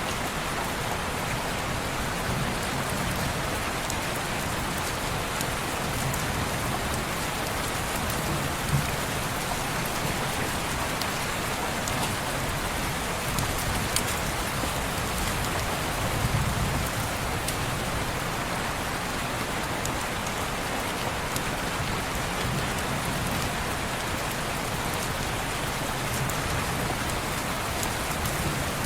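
Steady heavy rain on a window pane, an even hiss with a few sharp ticks of drops and low soft rumbles swelling now and then.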